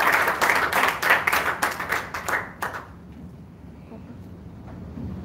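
A small audience clapping, a dense run of handclaps that thins out and stops about two and a half seconds in.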